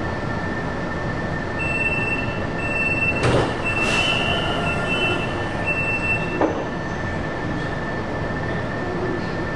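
Metro train running through a tunnel: a steady rolling rumble with a constant high whine, and a thin, high wheel squeal that comes and goes for a few seconds in the middle, with a few short knocks.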